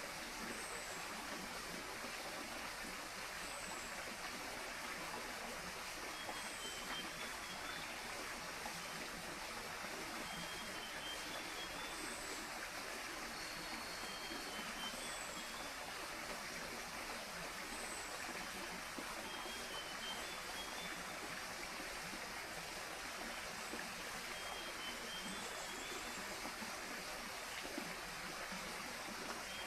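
Tropical rainforest ambience: a steady rush like flowing stream water under repeated short high calls. A brief downward chirp recurs every few seconds, and small phrases of lower notes come in between.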